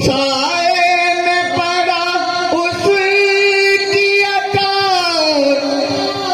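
Male qawwali singer holding long, drawn-out sung notes into a microphone, the pitch sliding slowly and falling away near the end. There are a few faint beats beneath the voice.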